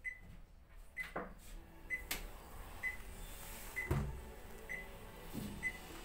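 Super General front-loading washing machine beeping at the end of its cycle: a short high beep about once a second. Clicks and a heavy clunk about four seconds in come as the door is unlatched and pulled open.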